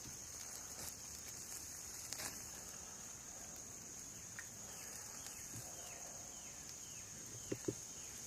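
Steady high-pitched drone of an insect chorus, with a series of short falling chirps in the second half and a few sharp pops, the loudest two close together near the end, from the wood campfire.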